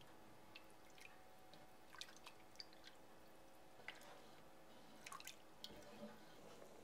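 Near silence: faint room hum with scattered soft clicks and drips as a spoon stirs broth in a pot.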